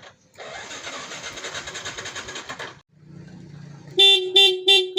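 Motorcycle electric starter cranking for about two and a half seconds and then stopping. Near the end a horn sounds three short beeps, the last held a little longer and the loudest.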